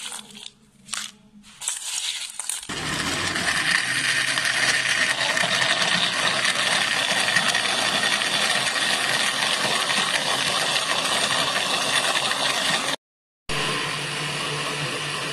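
Countertop electric blender running at speed, churning ice cubes, ice cream and milk into a shake, with a steady whine over the noise. It starts after a few short knocks about two and a half seconds in, and breaks off for a moment near the end before running on.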